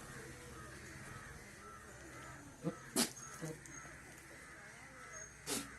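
A goat giving a few short, harsh calls: a cluster about three seconds in and one more near the end.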